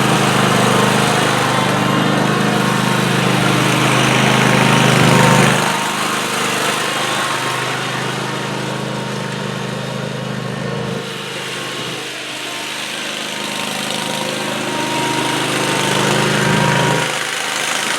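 Riding lawn tractor's engine running steadily as the tractor is driven, louder for the first few seconds, quieter through the middle and swelling again shortly before the end.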